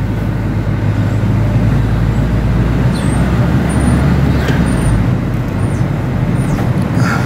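Steady low rumble of city road traffic, with a few short, faint high chirps between about three and five seconds in.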